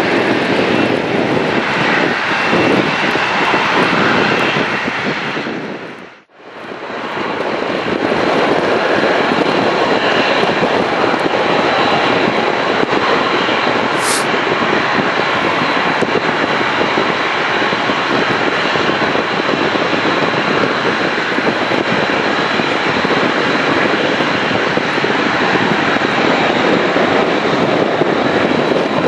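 An airliner's engines run loud and steady at the airport, a dense roar with a faint steady high whine in it. The sound cuts out abruptly about six seconds in, then comes back at the same level.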